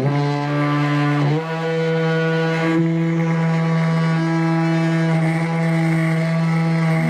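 Oscillating multi-tool cutting a circle out of plastic: a steady buzzing drone with a slight shift in pitch about a second in.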